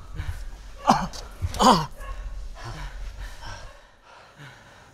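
A man groaning in pain and breathing hard: two loud groans that fall in pitch, then fainter gasping breaths, over a low rumble that stops about four seconds in.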